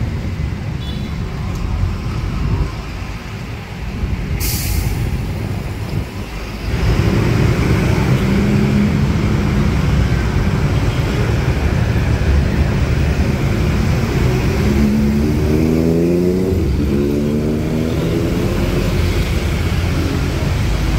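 Busy city street traffic of scooters, motorbikes, cars and a bus, heard as a steady engine and tyre rumble. A short sharp hiss comes about four and a half seconds in. The traffic grows louder from about seven seconds, and around fifteen seconds an engine speeds up with its pitch rising.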